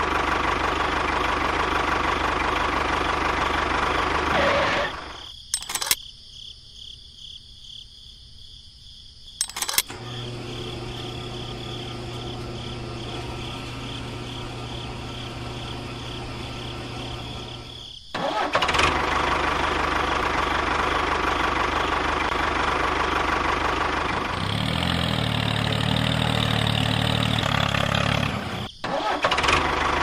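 Tractor engine running, cut into pieces: loud at first, then dropping away for several seconds with a couple of clicks, a steady low hum in the middle, and the engine again, loud, through the second half.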